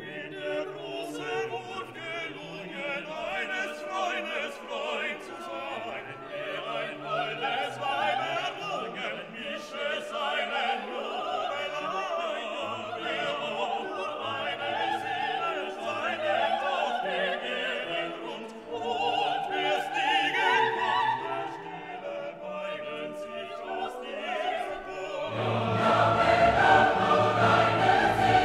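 Classical background music with operatic singing. It grows louder and fuller, with deeper bass, near the end.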